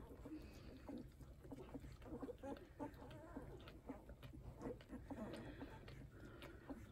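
Newborn Hovawart puppies nursing: faint, irregular small squeaks and grunts mixed with wet suckling and smacking clicks.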